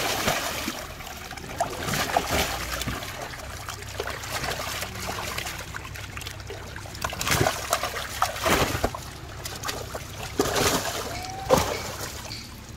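Large fish thrashing in a shallow tarp-lined tank of water, splashing hard over and over, with water sloshing and dripping as a fish is handled and lifted out near the end.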